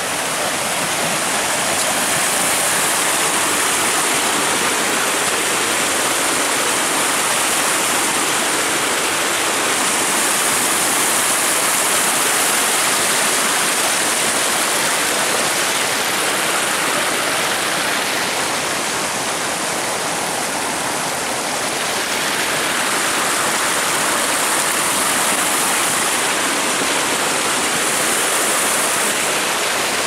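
Steady, loud rush of a shallow stream flowing fast over rocks, easing slightly about two-thirds of the way through.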